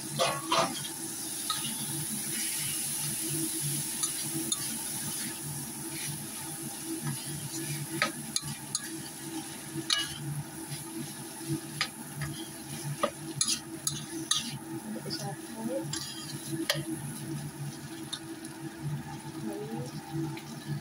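A spatula stirring turkey berries and petai beans through spice paste in a steel wok, with a steady frying sizzle and irregular clicks and scrapes of the spatula against the pan.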